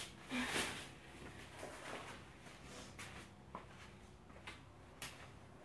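Soft, irregular footsteps and rustling of a weighted bag being carried across a gym floor.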